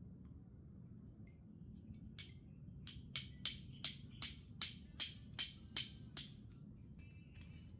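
A run of about eleven sharp, ringing taps, evenly spaced at roughly two and a half a second, over a steady high insect-like whine.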